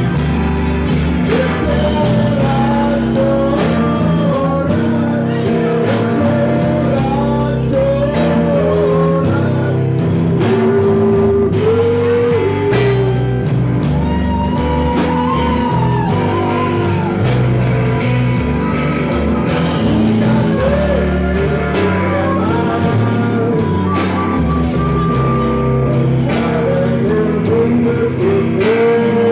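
Live blues-rock band playing loudly: electric guitar, bass and a drum kit with busy cymbals, with a man singing into the microphone and pitch-bending lead lines.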